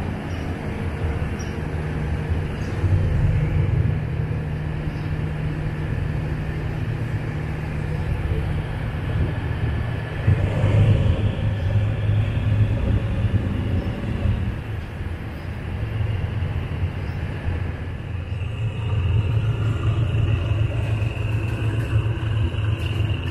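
Diesel train engine running with a steady low rumble and hum. A higher steady whine joins about three-quarters of the way through.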